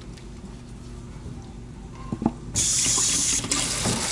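Kitchen faucet turned on about two and a half seconds in, running water into a plastic colander of blueberries in the sink. A few light knocks come just before the water starts.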